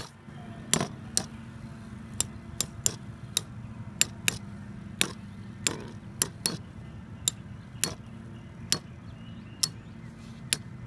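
Two Metal Fight Beyblades, Galaxy Pegasus W105R2F and Sol Blaze V145AS, spinning in a plastic stadium. Their metal wheels collide in about twenty sharp clicks at irregular intervals over a steady low hum.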